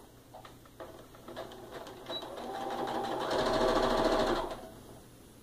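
Sewing machine stitching a quarter-inch seam. A few scattered ticks come first, then it runs, growing louder from about two seconds in, and stops shortly before the end.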